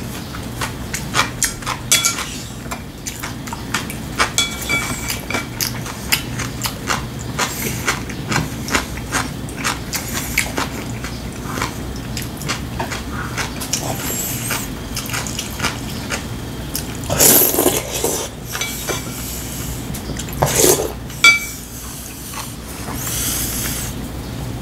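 Eating at the table: chewing, with many small clicks of a spoon and chopsticks against ceramic bowls. Two louder noisy sounds come about 17 and 21 seconds in.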